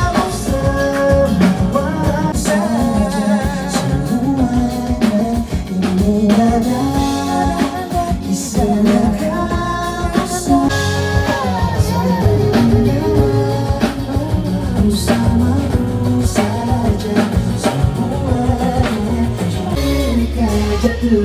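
A pop-rock song with a singing voice over a band accompaniment.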